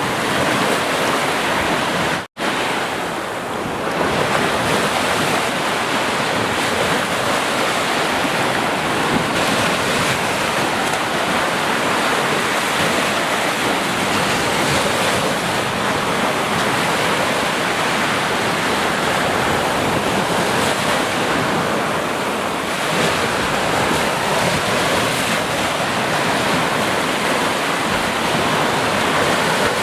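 Sea waves washing onto the shore in a steady, continuous surf, with a momentary drop to silence about two seconds in.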